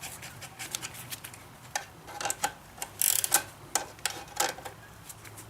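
Irregular metal clicks and short scrapes of wrenches working the chain adjuster bolts on a small dirt bike, with a few louder clicks about three seconds in.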